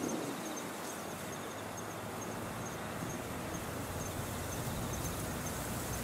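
Strong gusty wind buffeting the microphone, with a low rumble building from about a second and a half in. Faint high chirps repeat about twice a second.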